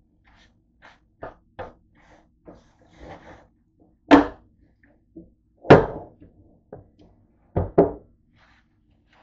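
A George Foreman contact grill being handled on a countertop. Light taps and clicks come first, then a loud thump about four seconds in as the lid is shut, another loud knock near six seconds, and a quick double knock near the end as the grill is tipped up onto its end.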